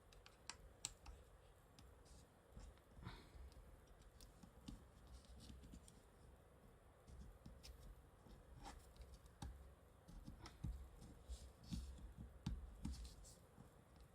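Faint, scattered small clicks and light scratching from the antenna assembly being fitted and aligned on a Sony Xperia 1 V's frame by hand during reassembly.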